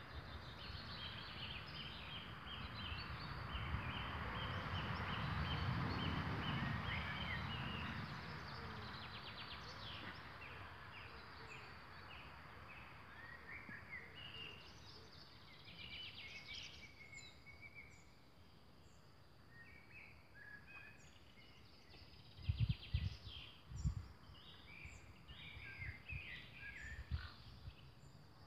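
Outdoor ambience with small birds chirping and trilling on and off throughout. A broad rushing noise swells and fades in the first several seconds, and a few low thumps come near the end.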